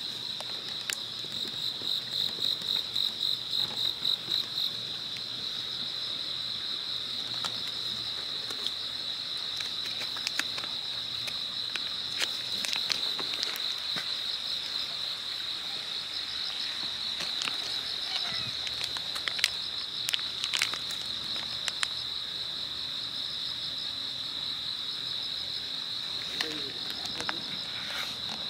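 Night insects trilling in a continuous high-pitched chorus, pulsing in quick beats and louder for the first few seconds, with a few scattered short clicks.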